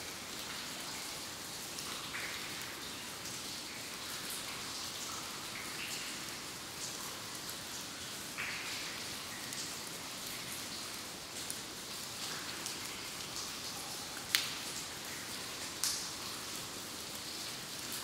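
Water dripping in a cave: scattered single drops at irregular intervals over a steady hiss, some landing with a short pitched plink. Two sharper, louder drips fall near the end.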